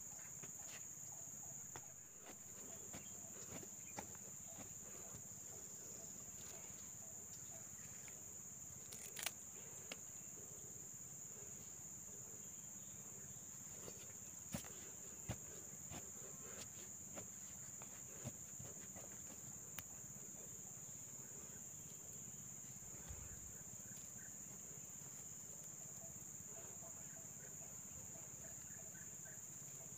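Steady high-pitched chorus of insects, with scattered soft knocks and scrapes as an iron rod loosens soil and hands work the earth around a planted cutting.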